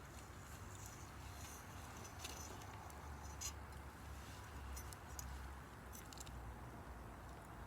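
Wood campfire crackling: faint, irregular snaps and pops, the sharpest about three and a half seconds in, over a low steady rumble.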